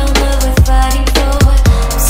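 Electronic music with a heavy, steady bass and punchy kick drums, three kicks landing in quick succession.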